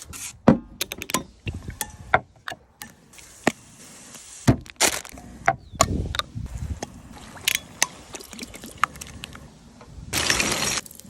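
Food preparation handling sounds: a scattered series of sharp knocks, clicks and clinks of utensils and containers, with a second-long burst of rustling hiss about ten seconds in.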